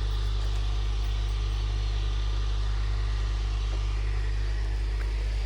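A steady low engine hum, running evenly without change.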